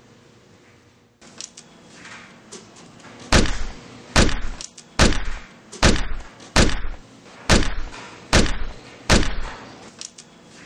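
Eight gunshot sound effects in a steady series, about one a second, each a sharp, loud bang with a deep low end and a short tail.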